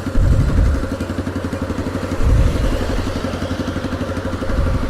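Motorcycle engine running loud through a bare exhaust pipe with no muffler, with an even, rapid firing pulse. Low surges in level come once near the start and again about two seconds in.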